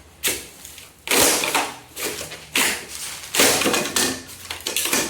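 Hand tools knocking and scraping on masonry, about five short strokes in a row, as in chipping off excess material during fireplace building work.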